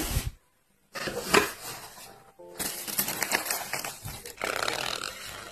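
Paper packaging rustling and crinkling as hands open it and push aside the honeycomb wrapping paper, in several irregular bursts after a short pause near the start.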